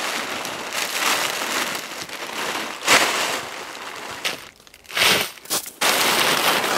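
Large plastic sacks crinkling and rustling as they are pulled off a cinder-block oven and bunched up. The rustling comes in uneven loud surges with a couple of brief lulls.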